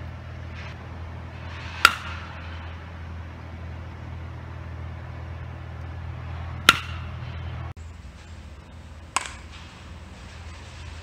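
A baseball bat hitting pitched balls: three sharp cracks, the first about two seconds in, the second about five seconds later, and a softer third about two and a half seconds after that.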